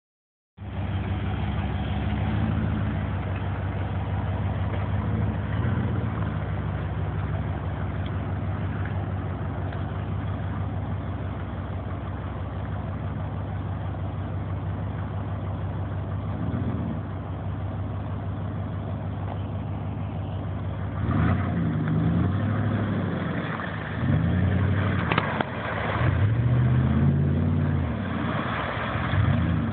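First-generation Jeep Grand Cherokee engine running at low, steady revs as it crawls along. About two-thirds of the way in it starts revving up and down repeatedly as it works through deep mud puddles.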